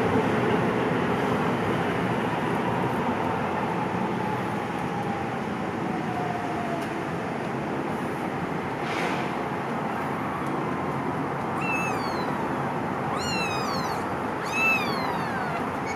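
Kittens mewing with high, thin calls that fall in pitch, several in quick succession in the last few seconds, over a steady background noise.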